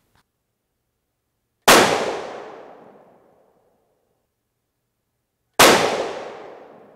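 Two rifle shots from a .223 Remington 700 bolt-action varmint rifle, about four seconds apart, each a sharp report followed by a long fading echo.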